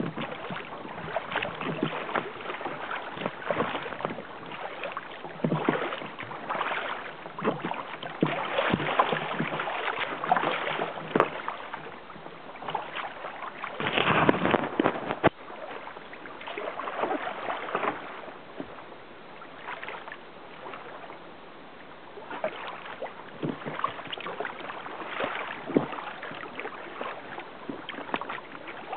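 Choppy lake water splashing and slapping against the hull of a kayak under way, in irregular surges, with one louder splash about halfway through.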